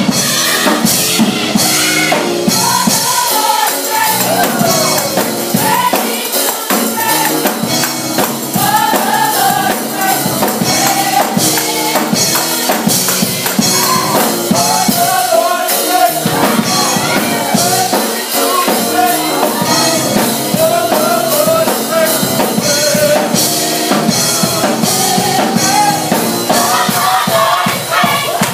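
Gospel choir singing with a band, tambourine and drums keeping a steady beat.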